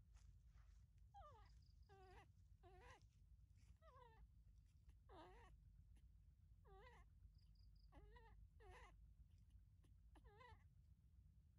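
Baby macaque giving a series of short, high cries, about nine in all, each sliding down in pitch or rising and then falling, spaced about a second apart. These are an infant monkey's distress calls.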